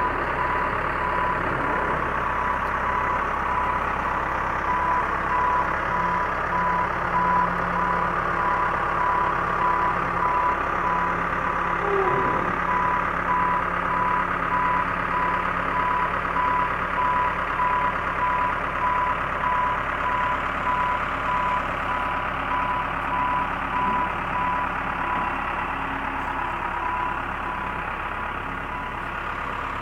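Backhoe reversing alarm beeping at an even, steady pace over the machine's engine running.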